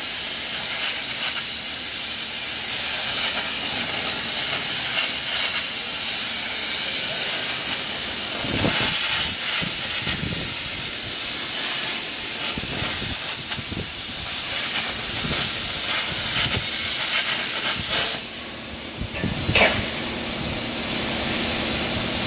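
Plasma arc of a StyleCNC STP1530R CNC plasma cutter cutting metal plate: a loud, steady hiss that cuts off about four-fifths of the way through. Low thumps are scattered through the second half.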